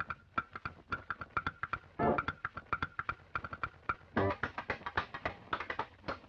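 Music with quick plucked guitar notes over a steady beat.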